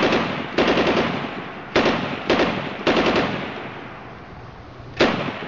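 Short bursts of automatic gunfire, six in all, each a quick rattle of shots that fades away, with a pause before a last burst near the end.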